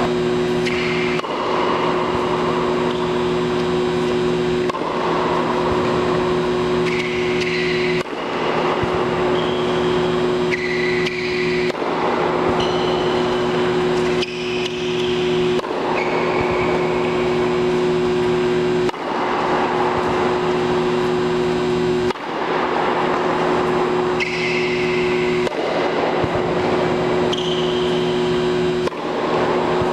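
Steady mechanical drone of an indoor tennis hall's ventilation or air-handling blowers, a hum with several constant low tones, broken off abruptly every few seconds.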